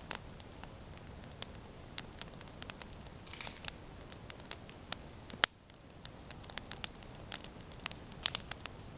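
Wood campfire crackling: irregular sharp pops and snaps, a few a second, over a low steady rush, with one louder pop about five and a half seconds in.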